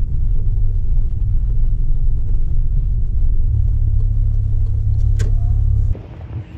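Low, steady rumble of a car driving slowly, heard from inside its cabin, with one short click about five seconds in. Near the end it cuts off suddenly to a much quieter outdoor sound.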